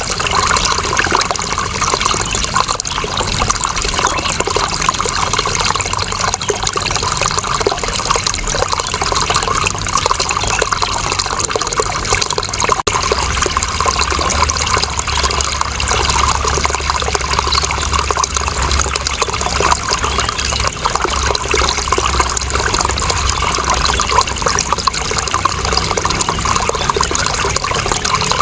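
Steady running water, a continuous splashing flow with no breaks, with a low rumble underneath through the middle stretch.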